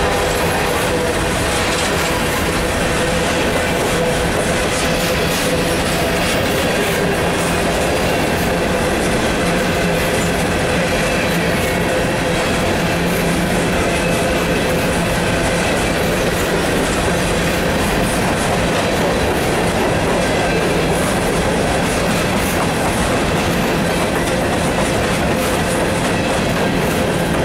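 Empty coal hopper cars of a freight train rolling past, a steady loud rumble of steel wheels on rail with a continuous clicking clatter from the wheels and cars.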